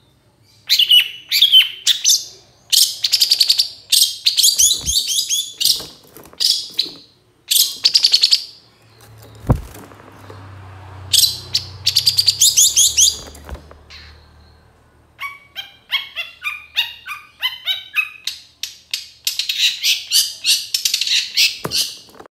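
Long-tailed shrike (cendet) singing in loud bursts of fast, harsh chattering phrases separated by short pauses. Past the middle comes a run of evenly spaced repeated notes, about three a second, and then a dense burst of chatter near the end.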